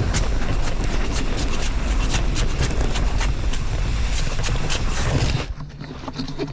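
Heavy plastic bag of mulch being dragged across the ground, a continuous scraping and crinkling with many sharp crackles, stopping abruptly about five and a half seconds in.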